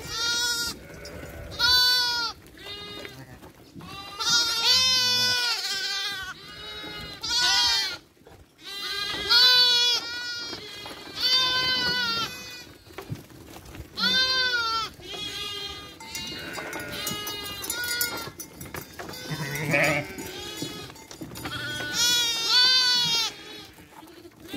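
A flock of sheep and lambs bleating again and again, short calls following one another every second or two, some overlapping, as they crowd through a corral gate.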